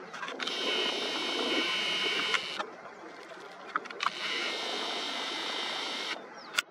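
Nikon Coolpix P1000 zoom motor whirring in two bursts of about two seconds each, zooming out and then back in, with small clicks and a sharp click near the end.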